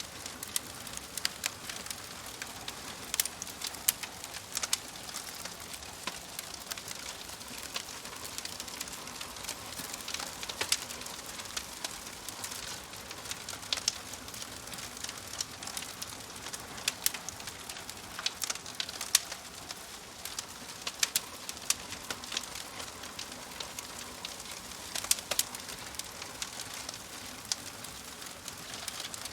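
Wood fire crackling: irregular sharp pops and snaps over a soft steady hiss.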